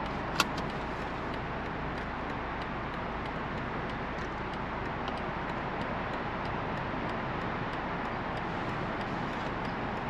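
BMW Z4 sDrive30i driving at a steady pace, its 2.0-litre turbocharged four-cylinder engine and tyre noise running as an even rush with no revving. A single sharp click about half a second in.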